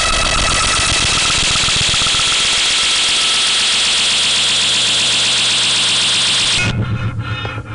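Harsh electronic noise in an experimental violin-and-electronics improvisation: a dense, loud wall of distorted noise with a rapid pulse underneath. It cuts off suddenly near the end, leaving quieter sustained tones over a low pulsing drone.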